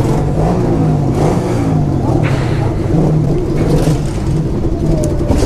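Small pit bike engine running, its pitch rising and falling as the throttle is blipped.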